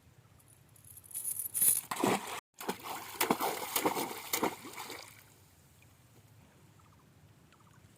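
Water splashing and sloshing in irregular bursts for about four seconds, starting about a second in and breaking off for an instant partway through, then dying away.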